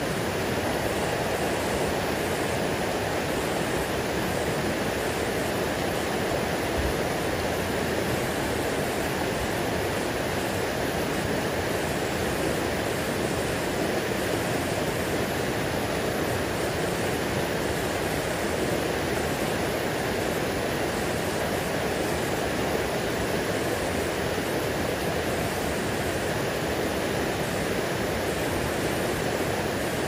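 River rushing over rocks in whitewater rapids: a steady, unbroken roar of fast-moving water.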